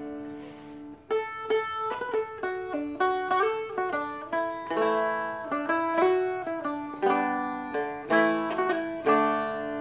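Seagull Merlin M4, a four-string dulcimer-style guitar, picked note by note: a melody played over open strings that keep ringing as a drone. An open strum rings for about the first second before the picking starts.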